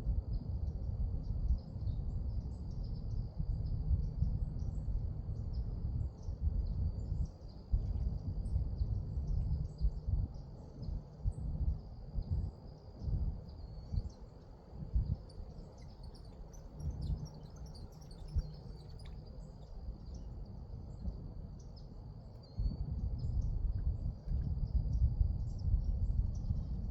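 Outdoor ambience: a steady, high-pitched insect drone with scattered bird chirps, over an uneven low rumble of wind on the microphone that eases off midway and picks up again near the end.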